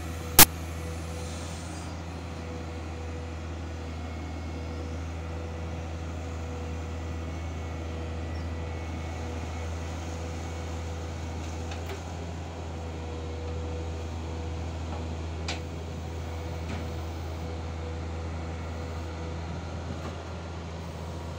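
Watermaster amphibious dredger's diesel engine running steadily under work: a constant low drone with a faint whine held on one pitch. A single sharp click about half a second in.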